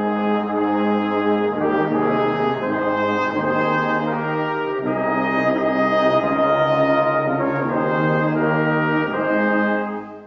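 Brass music playing slow, sustained chords, stopping shortly before the end.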